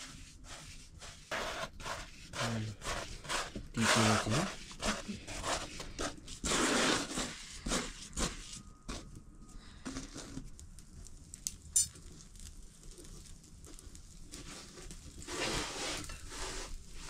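Kitchen work: scattered knocks and clatter of pots and utensils, with a few short bursts of rustling or scraping noise.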